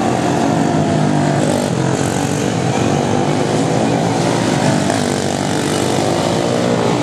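Quarter midget race cars' small single-cylinder engines running at race pace, a continuous buzzing whose pitch drifts up and down as the cars work around the oval.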